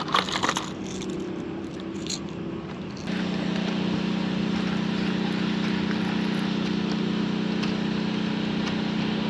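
A small motor starts running steadily about three seconds in, an even low hum with a noisy wash over it, after a few light clicks at the very start.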